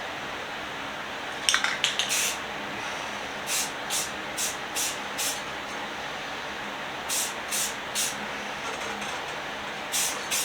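Spray paint hissing out in short bursts, about a dozen quick passes in groups, as a coat of red paint is laid on the hanging vise parts. A few sharp clicks come about a second and a half in.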